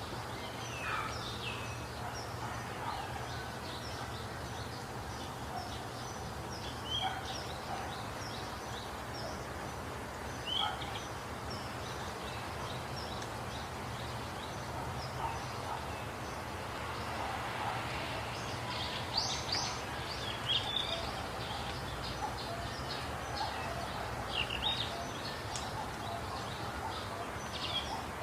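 Wild birds chirping and calling: many short, high chirps scattered throughout, busier in the second half, over a steady background hiss and a low hum.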